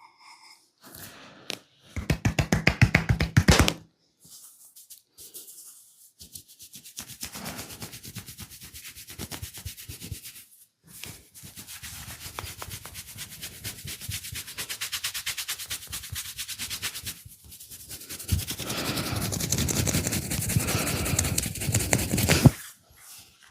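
Hands rubbing and scratching rapidly in a massage, in quick strokes many times a second. The strokes come loudest in a short spell about two seconds in and again over the last few seconds.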